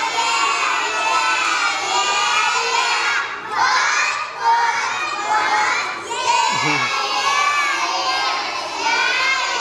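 A group of young children loudly shout-singing together, with short breaks between phrases about three and a half and six seconds in.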